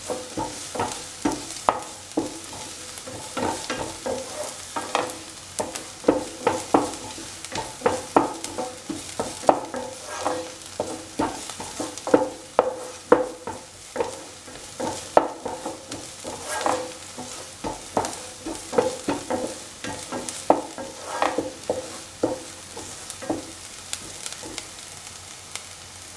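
Spatula scraping and knocking against a pan in quick repeated strokes while sliced shallots sizzle in hot oil, being sautéed towards golden brown. The stirring stops near the end, leaving only the sizzle.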